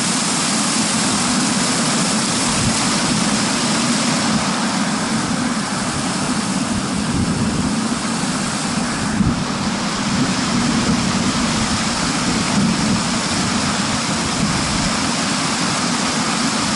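Steady rush of fast-flowing stream water, an even noise that does not change.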